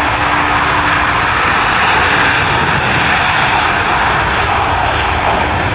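Jet engines of Blue Angels F/A-18 Hornets, a loud, steady noise from the formation flying overhead.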